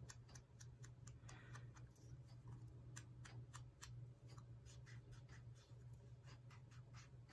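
Faint, quick taps of an ink-loaded sponge blending tool dabbing ink onto a paper ticket, several a second and irregular, over a low steady hum.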